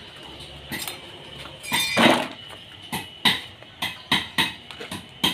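A series of sharp, irregular clinks and knocks, about one or two a second, with a longer rushing burst about two seconds in.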